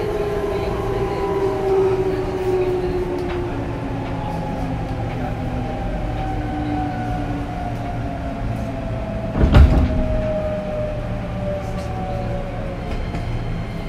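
Interior running sound of a JR East 205 series 5000 subseries motor car, its Toyo IGBT-VVVF inverter and traction motor whine falling slowly in pitch as the train slows, over a steady rumble. A single loud thump about two thirds of the way through.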